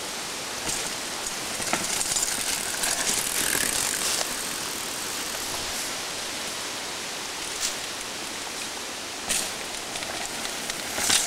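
Mountain bike tyres rolling over a dry dirt trail covered in leaf litter as riders pass, a crackly rustling noise that swells about two seconds in and again near the end. A few short, sharp knocks from the bikes come through along the way.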